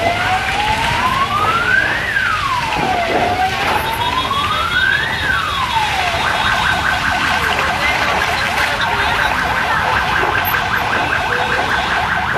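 Emergency vehicle siren wailing: its pitch rises and falls slowly twice, then about halfway through it switches to a fast, rapidly repeating yelp.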